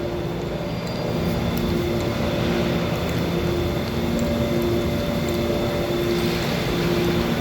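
Steady mechanical drone with a hiss and several held low tones that fade in and out.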